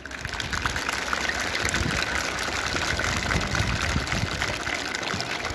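A crowd of adults and children applauding. The clapping rises quickly at the start and then holds steady.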